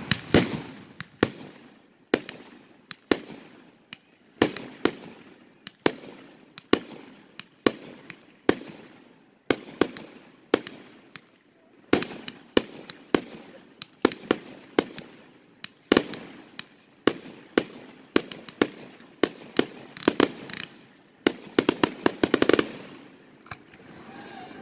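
Aerial fireworks shells bursting one after another, sharp bangs about one or two a second, each trailing off. A rapid run of bangs about 21 seconds in, after which it falls quieter.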